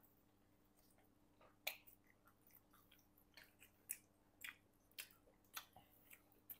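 Faint chewing of pizza close to a clip-on microphone: soft, irregular wet mouth clicks and smacks, roughly one or two a second.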